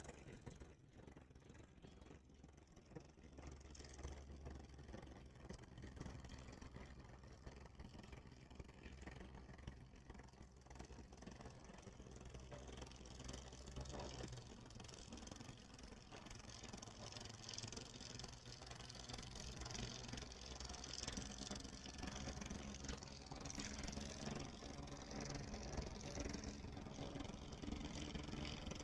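Faint low engine hum, steady and slowly growing louder toward the end, with a faint high hiss over it.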